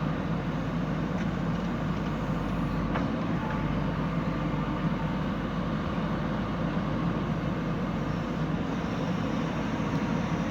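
Heavy diesel engine running steadily at a constant pace, with no distinct knocks or changes.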